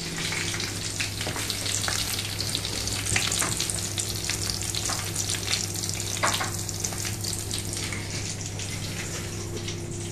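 Breadcrumb-coated phyllo cheese fingers frying in a pan of hot oil, sizzling and crackling steadily.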